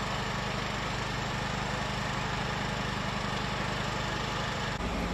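Steady low hum of idling machinery with a fast, even low throb; the hum changes abruptly near the end.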